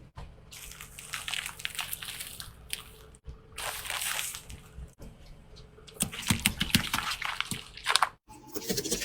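Objects crunching, crackling and squishing as they are crushed under a car tyre, in several short sections that cut off abruptly.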